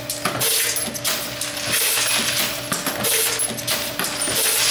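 Camdex automated rifle case processor running: brass cartridge cases clink and rattle as the die head cycles about every second and a quarter, over a steady machine hum.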